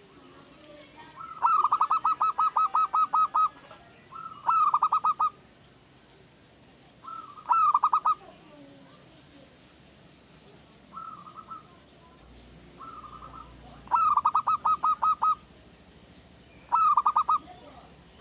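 Male zebra dove (perkutut) cooing in its staccato song: several phrases of rapid pulsed coos at about five a second, the longest running about two seconds, with a couple of softer short phrases between. It is a young wild-caught bird still learning its song.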